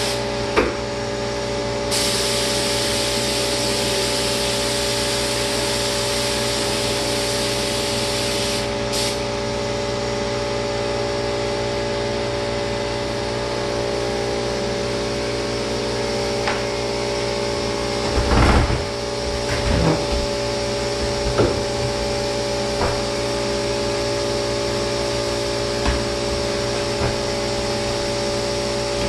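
Turbine of an HVLP paint sprayer running steadily with a hum, and the spray gun hissing as lacquer is sprayed, strongest from about two seconds in to about nine seconds in. A few knocks and clunks come about two-thirds of the way through.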